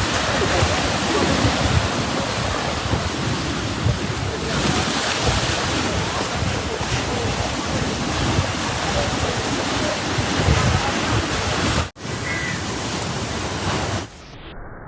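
Sea waves breaking on a beach, mixed with wind on the microphone: a steady, loud rush of noise. There is a brief dropout about twelve seconds in, and near the end the sound cuts abruptly to a quieter, duller steady noise.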